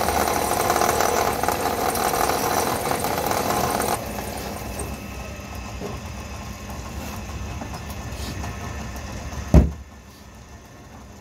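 A belt-driven wood lathe running while a hand chisel cuts the spinning wood, a steady scraping hiss over the motor. About four seconds in the cut stops and the lathe runs on more quietly. A single loud thump comes near the end.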